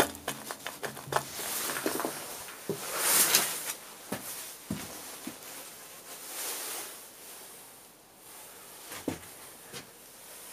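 Scattered footsteps, knocks and scrapes on the dust- and debris-covered steel floor of an old locomotive cab. About three seconds in there is a louder burst of rustling hiss.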